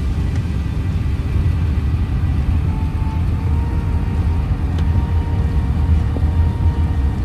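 Steady low rumble of cabin noise aboard an Airbus A380-842 airliner, with faint thin tones near the middle of the range joining about three seconds in.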